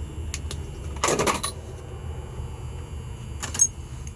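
Small metal lock-cylinder parts being handled on a bench during rekeying: two light clicks, a short clatter about a second in, and a sharp metallic click with a brief ring near the end, over a steady low hum.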